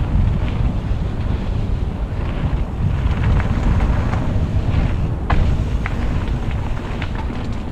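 Wind buffeting the microphone of a riding mountain biker's camera, with scattered sharp knocks and rattles from the bike as it rolls over the bumpy dirt trail.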